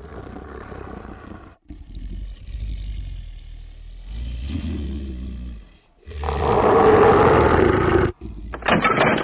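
T. rex sound effect: a series of low growls, building to a loud roar about six seconds in that lasts about two seconds. A different harsh, noisy sound starts just before the end.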